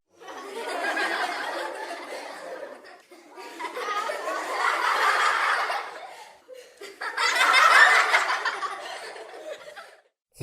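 Three laughter sound effects played one after another, each swelling and then fading away, with short gaps between them.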